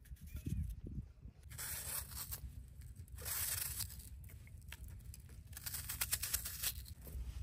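Knife slicing through a raw onion held in the hand: several crisp, tearing crunches about two seconds apart as the blade is drawn through the layers, over a steady low rumble.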